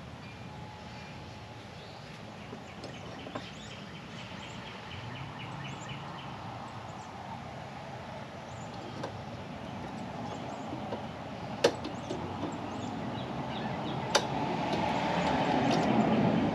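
Steady outdoor background noise with a short run of high chirps a few seconds in. Two sharp clicks come about two and a half seconds apart as small parts are handled at the kart's steering column. The background noise swells near the end.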